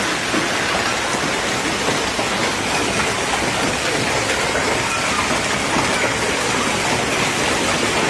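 Heavy rain pouring down steadily, a dense even hiss with no letup.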